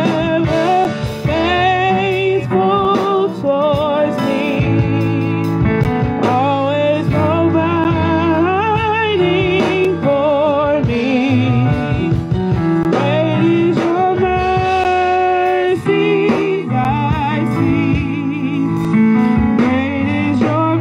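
A gospel song sung by several voices into microphones and amplified through a PA loudspeaker, with vibrato on the held notes over a sustained instrumental backing.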